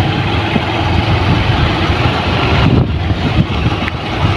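A moving vehicle's engine and road noise, steady and loud, heard from on board.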